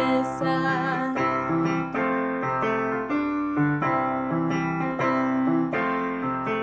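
Instrumental piano accompaniment of a children's song, playing a steady rhythmic pattern of chords, with the last sung word of the chorus fading at the very start.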